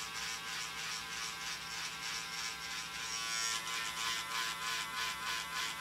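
A steady electric buzz made of several held tones, with a faint regular pulsing in the hiss above it.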